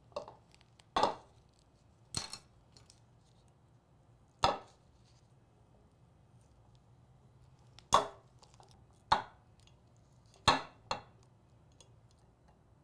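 Sharp, irregular clicks and taps as a metal weeding hook picks at an adhesive vinyl stencil on a glass jar and peels it away, about nine in all, spaced a second or more apart.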